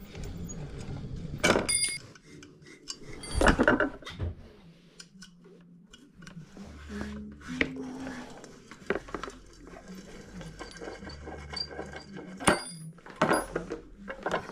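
Small metal parts and tools clinking and knocking as they are handled and set down, a few of the hits ringing briefly, with quieter handling and rubbing between them.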